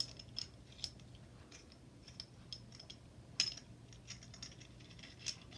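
Faint scattered clicks and light taps of small faucet adapter fittings being handled and fitted together, with a sharper click about three and a half seconds in.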